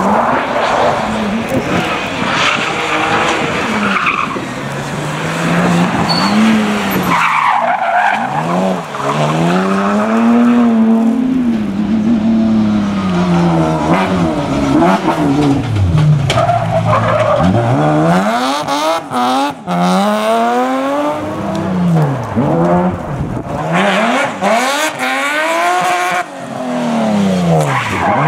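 Rally cars driven hard, engines revving up and dropping back again and again through gear changes, several cars in turn.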